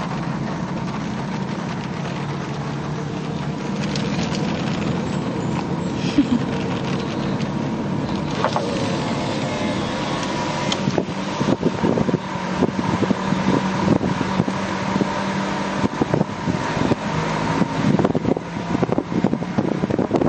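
Car driving, its engine and road noise heard from inside the cabin as a steady hum. From about halfway through the sound turns uneven, with irregular knocks and wind buffeting the microphone.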